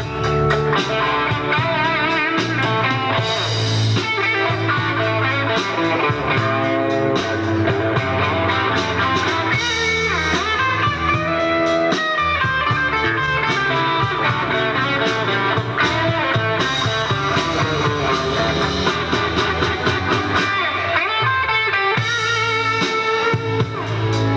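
Live rock band jamming: electric guitar leading over a drum kit and keyboards.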